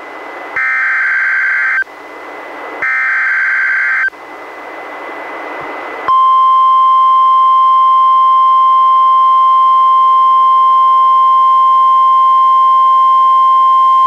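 NOAA Weather Radio emergency alert on a Reecom R-1630 weather radio. It plays the last two of the three SAME header data bursts, each a little over a second long and about a second apart, then radio hiss. About six seconds in, the steady 1050 Hz warning alarm tone starts, which announces a new warning.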